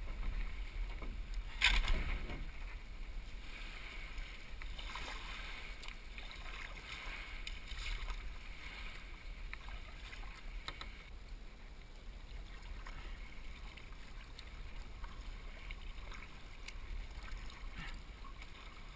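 Sea kayak being paddled: the paddle blades dip and splash in the water every few seconds, over a steady low rumble of wind on the microphone. A sharper, louder knock or splash comes just under two seconds in.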